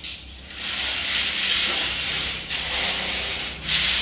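Long steel rebar rods dragged over a stack of bars and a concrete floor, a loud steady scraping hiss. A low steady hum runs underneath.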